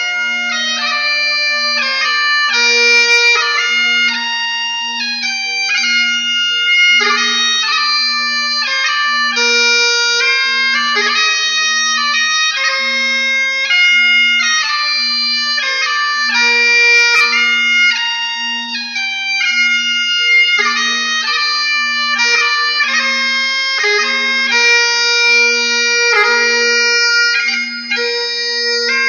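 Bagpipes playing a melody of held, changing notes over a steady drone.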